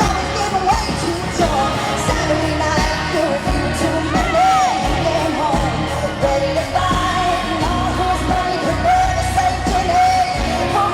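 Live country-pop song with a female lead vocal held in long wavering notes over a full band with a steady beat.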